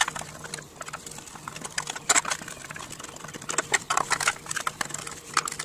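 Irregular small clicks and taps of a Phillips screwdriver turning out screws and handling the plastic carburetor and fuel tank of a Briggs & Stratton Classic mower engine.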